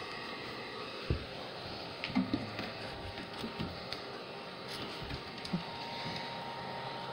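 Scattered light clicks and taps of a small hex key and metal screws being worked loose under a 3D printer extruder, over a steady background hiss.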